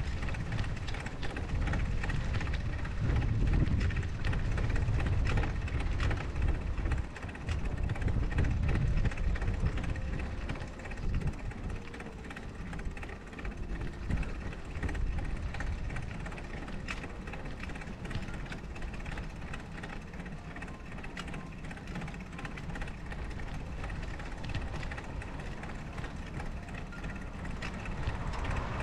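Wind rumbling on the microphone and tyre noise from a bicycle ridden over packed snow, with scattered clicks and rattles from the bike. Louder through the first ten seconds, then somewhat quieter.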